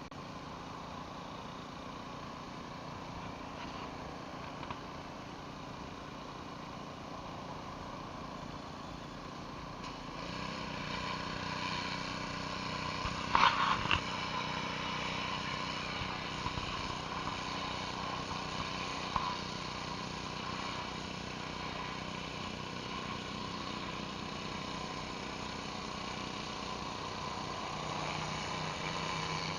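Gas pressure washer engine running steadily. About ten seconds in it picks up and runs louder and a little higher, and a few sharp knocks come a few seconds after that.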